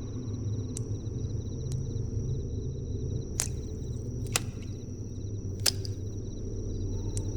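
Ambient sound bed of a low steady drone with fine, rhythmic insect chirping. About six sharp clicks or snaps are scattered through it, the strongest in the middle.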